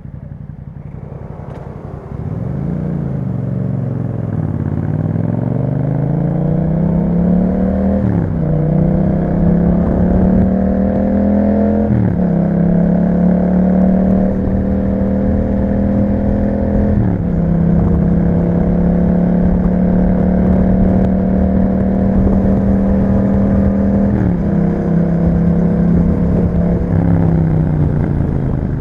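Yamaha MT-07's 689 cc parallel-twin engine through an Akrapovic aftermarket exhaust, pulling away and accelerating: the pitch climbs in each gear and drops suddenly at upshifts about 8 and 12 seconds in. It then holds a steady pitch at cruising speed, with brief drops at about 17 and 24 seconds, and falls away near the end as the bike slows.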